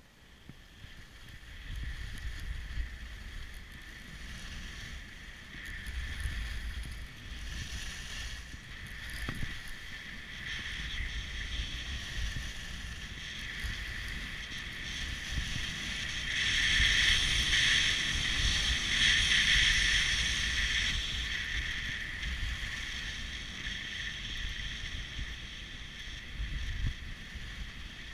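Skis sliding and scraping over packed, groomed snow, a steady hiss that swells for a few seconds past the middle. Wind buffets the microphone as a low rumble underneath.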